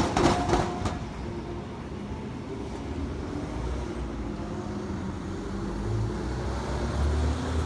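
A few sharp clacks in the first second, then a steady low rumble of passing vehicles with a faint engine hum.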